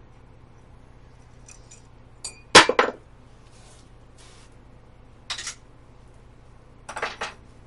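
Small metal parts and tools clinking as they are handled and set down: one sharp clatter about two and a half seconds in, the loudest, then lighter clinks around five and a half and seven seconds.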